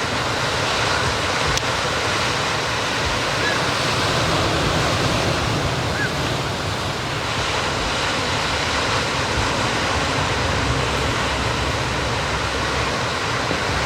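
Ocean surf breaking and washing onto the shore: a steady, unbroken rushing noise.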